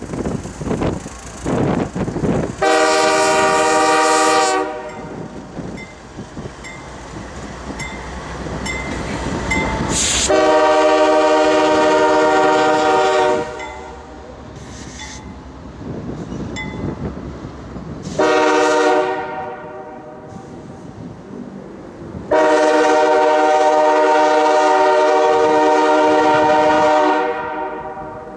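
Air horn of CSX GE CW40-8 locomotive 7731, sounded four times as it runs away with a second locomotive: long, long, short, long, the grade-crossing signal. Between the blasts the locomotives rumble and their wheels run on the rails.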